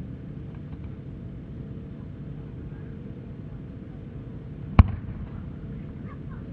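A single sharp firework boom just under five seconds in, the lift charge firing a shell up from its mortar, over a steady low murmur of an outdoor crowd.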